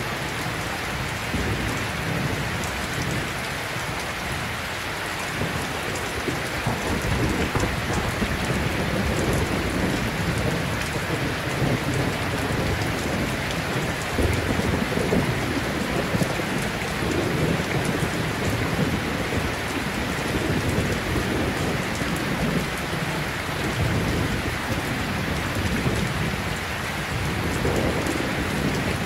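Steady rain-like rushing noise with low, rolling rumbles that swell and fade, like an ambient rain-and-thunder track.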